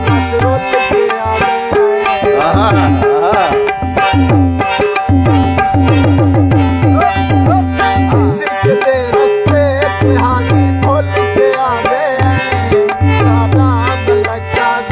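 Harmonium playing a melody over steady drone notes, with rhythmic low hand-drum strokes keeping time. A man's voice sings wavering phrases in places, most clearly a couple of seconds in.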